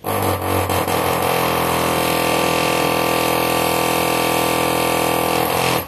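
A loud, steady motor drone, like a mains-powered electric appliance, switched on abruptly and cut off about six seconds later.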